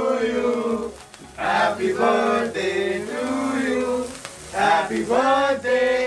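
Several men singing together in chorus, with a break about a second in, over the steady fizzing hiss of a fountain sparkler candle burning on the cake.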